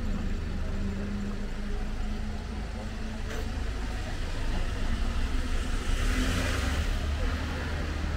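Car close by on a street: a steady engine hum, then a swell of engine and tyre noise about six seconds in as it passes.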